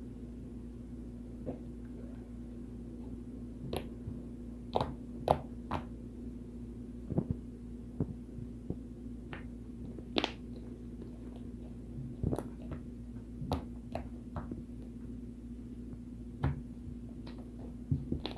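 Cloud slime being kneaded and stretched by hand with bouncing putty to make butter slime, giving irregular sticky clicks and pops, over a steady low hum.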